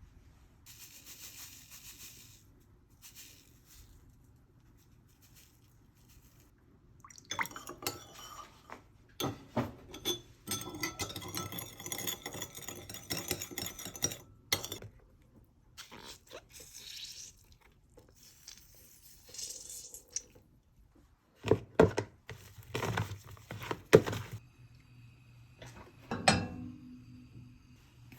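Kitchen work sounds: dishes and utensils clinking and knocking, loudest in a few sharp knocks near the end, with a few seconds of running liquid in the middle.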